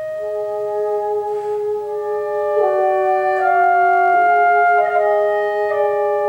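Chamber septet of violin, double bass, clarinet, bassoon, cornet, trombone and percussion playing: slow held notes, two or three at once, each moving to a new pitch every second or so.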